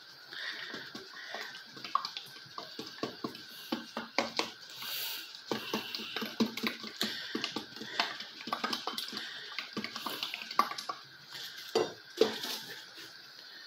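Plastic bottle of solidified palm oil being shaken and handled, giving a run of irregular knocks and clatters, over a faint steady hiss.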